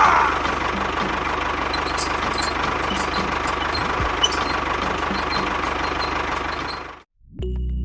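Small motor of a home-built mini construction vehicle running steadily with a fast, even ticking and a few sharp clicks. It cuts off abruptly about seven seconds in, and music begins.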